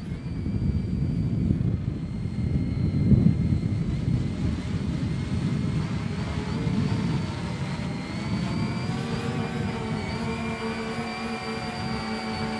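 Motors and propellers of a radio-controlled Canadair CL-84 Dynavert tilt-wing model whining in flight, at a steady pitch that wavers slightly. More whine tones join about eight seconds in. Under it runs a loud low rumble of wind buffeting the microphone, strongest about three seconds in.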